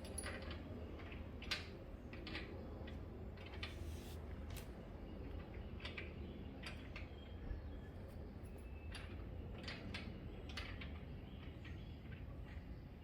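Scattered light clicks and taps of hands handling small parts and tools during an oil change, two of them sharper about a second and a half in and near the middle, over a low steady hum.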